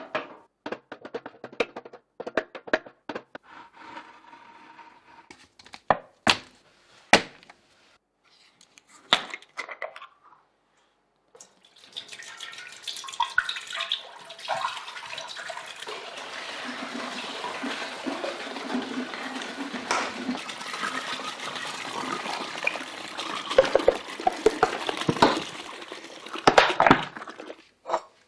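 Knocks and clicks of plastic milk jugs being handled, then about fifteen seconds of milk pouring steadily into a large stainless steel stockpot, several jugs at once.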